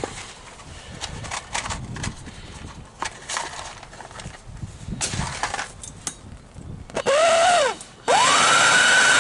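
Light clatter of tools being handled. About seven seconds in, an electric heat gun's fan motor whines up and back down for about a second. Just after, it starts again and runs steadily with a loud rush of air and a high whine, heating a seized steel plug to free it.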